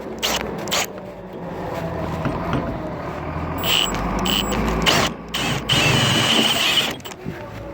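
Power drill boring into the metal inside cover of a double-keyed deadbolt, running with a few brief pauses.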